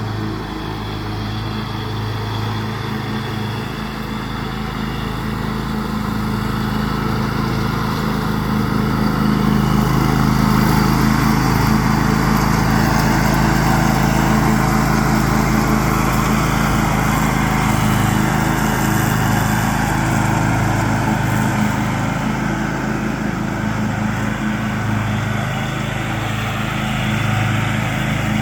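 John Deere X500 riding lawn tractor's engine running steadily while mowing, growing louder from about six seconds in and holding at that level.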